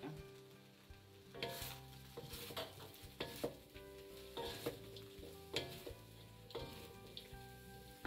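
Rice vermicelli stir-fried in a metal wok over a sizzle: the noodles with bean sprouts and prawns are lifted and tossed, giving about ten irregular scraping, rustling strokes against the pan from about a second in.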